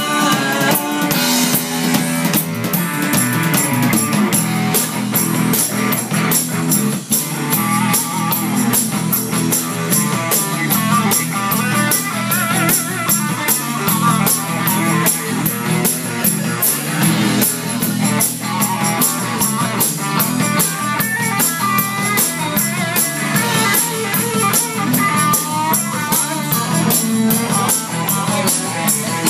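Live rock band playing: a drum kit keeps a steady beat under guitar.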